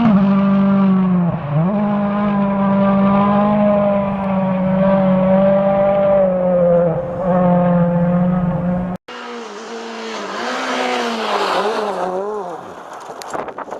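Rally car engine held at high revs, with quick dips in pitch about a second and a half in and again near seven seconds as the driver shifts or lifts. After a sudden break about nine seconds in, another rally car is heard revving up and down over a rushing hiss, fading away near the end.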